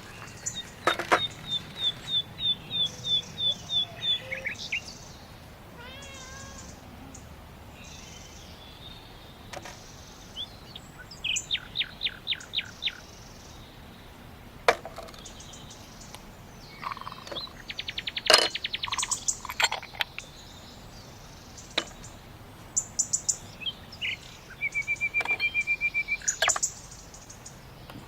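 Garden songbirds calling in turns: a run of about a dozen evenly spaced high notes, a short burst of quick chips, a fast buzzy trill, and near the end a rapid, even trill.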